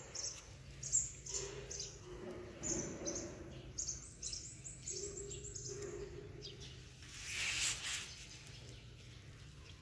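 Small birds chirping in quick runs of short, high, falling notes, then a short burst of noise about seven and a half seconds in.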